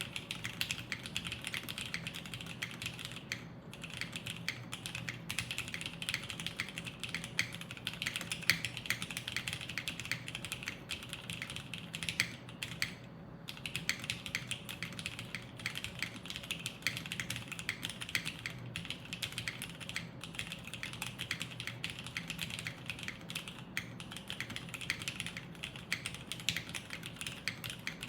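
Continuous fast typing on a mechanical keyboard with vintage Cherry MX Black linear switches and Cherry ABS double-shot keycaps, an O-ring-mounted aluminium-plate board; a deep clack, with brief pauses about 3.5 and 13 seconds in.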